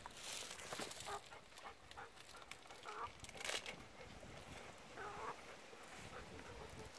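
A brown hen clucking in short, soft calls, a few times. Brief rustles and clicks are mixed in.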